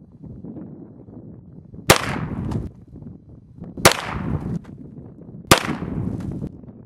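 Three shots from a 1948 High Standard HD Military .22 Long Rifle pistol, a second and a half to two seconds apart, each with a short echo after it.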